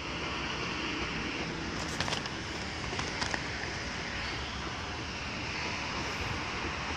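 Steady outdoor background noise, an even rumble and hiss without any clear pitched source, with a few faint clicks around two and three seconds in.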